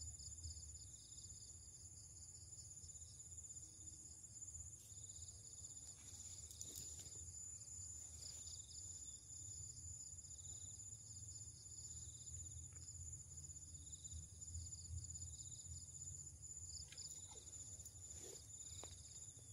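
Insect chorus: a steady high-pitched shrill with a faster pulsing chirp just below it, over a low steady rumble.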